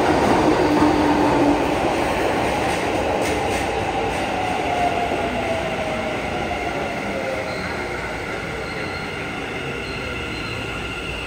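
Keikyu electric commuter train running along an underground station platform, slowing as it comes in. Its motor whine falls slowly in pitch over the rumble of wheels on the rails, and the sound grows quieter.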